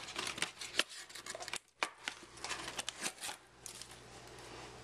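Trading cards and their cardboard box being handled: a run of crisp rustles and light clicks as a card is slid out and the box lifted, quieting after about three and a half seconds.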